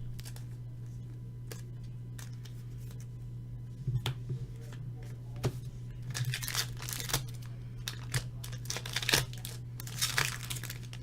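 Trading card pack wrapper being torn open and crinkled, a crackling rustle from about six seconds in, after a few light clicks of cards being handled. A steady low hum runs underneath.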